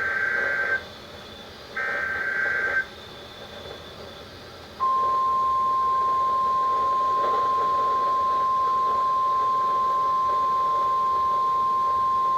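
NOAA Weather Radio alert tones: two short, buzzy digital data bursts of about a second each (the end of the repeated SAME header), then a gap of about two seconds, then the long, steady warning alarm tone. The sequence signals that a new warning is about to be read.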